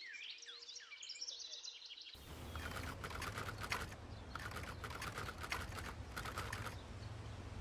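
Small birds chirping for about two seconds. Then the sound changes abruptly to a low hum, with groups of rapid clicking until near the end.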